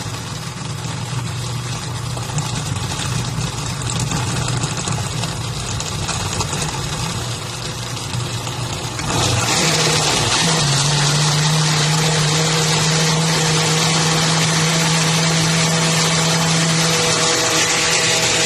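Countertop blender with a glass jar running steadily, puréeing chunks of guajillo chile, tomato, onion, garlic and ground shrimp into a mole sauce. About halfway through the motor note steps up higher and louder and holds there while the mix is blended smooth.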